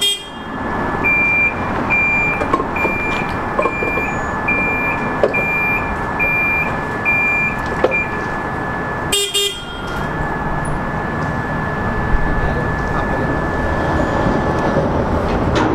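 A railcar mover's diesel engine running steadily, with an electronic warning beeper going about nine times, roughly once a second, until about eight seconds in.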